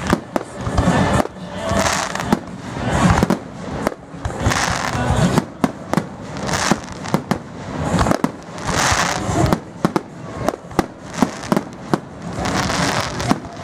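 Fireworks display with aerial shells bursting in quick, uneven succession: many sharp bangs, several a second, over swelling crackle and hiss.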